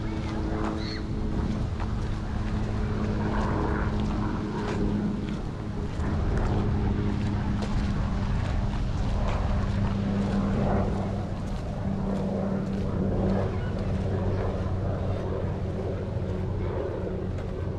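A steady, low engine hum, its pitch shifting slightly about twelve seconds in.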